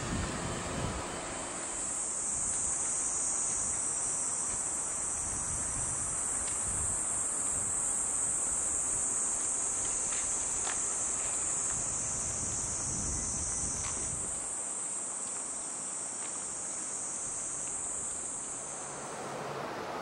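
Cicadas calling in one steady, high, continuous drone over the low rumble of street traffic. The drone stops near the end.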